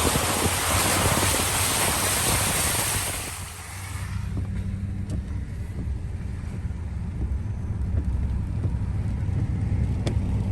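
Car driving through standing floodwater, heard from inside the cabin: a loud hiss of water sprayed up by the tyres, which dies away about three and a half seconds in, leaving the steady low rumble of the engine and tyres on the road.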